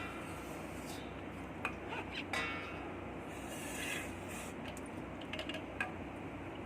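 Light metallic clinks and clicks of tools and parts being handled. The clearest comes a little over two seconds in and rings briefly, another follows near the end, and a steady low hum runs underneath.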